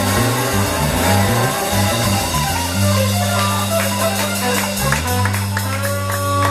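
Live blues band playing, with guitar and drums over a moving bass line; from about three seconds in the band holds long sustained low notes.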